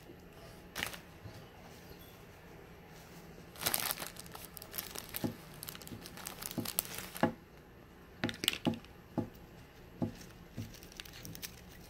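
Crinkly rustling and sharp clicks of a paper noodle cup and plastic spoon being handled, in irregular bursts, busiest from about four to seven seconds in.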